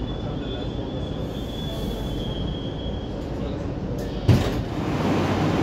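Interior of an ATM series 900 "Meneghino" metro train running at low speed into a station: steady running noise with a thin high-pitched squeal that fades out about three seconds in. A sudden loud knock comes about four seconds in, followed by louder, fuller noise.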